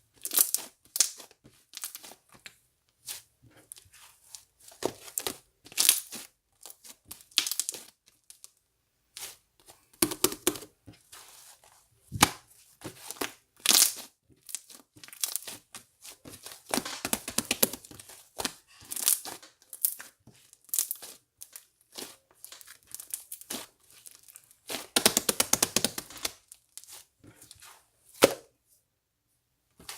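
Irregular crinkling and tearing from crinkly material being handled, in short bursts with brief pauses between them.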